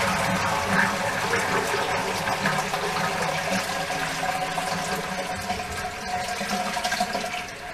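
Toilet flush: water rushing with a steady tone under it, slowly getting quieter and cutting off at the very end.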